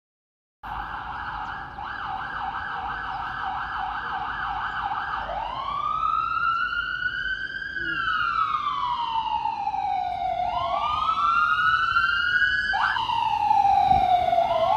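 Emergency vehicle siren sounding from the street: a fast warbling yelp for about five seconds, then a slow wail rising and falling in pitch. It gets gradually louder over the traffic rumble.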